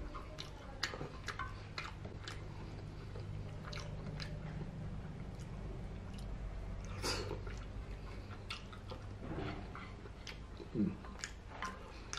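Close-up chewing of cheesy spaghetti and meatballs, with scattered short wet mouth clicks, over a steady low hum.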